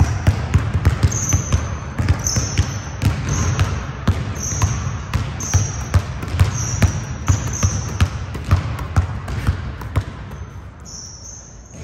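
A basketball being dribbled on a gym court, bouncing quickly at about three bounces a second and getting a little quieter near the end, with repeated short high-pitched squeaks.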